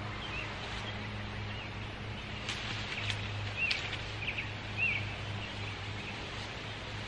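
Outdoor ambience: a bird gives a few short chirps while cut brush snaps and rustles as it is pulled from a bush and dragged over grass, with a few sharp clicks in the middle, over a steady low hum.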